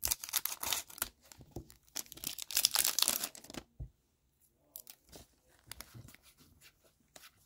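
SP Authentic hockey card pack wrapper being opened, crinkling and tearing in two long bursts. This is followed by softer rustles and small clicks as the cards are handled.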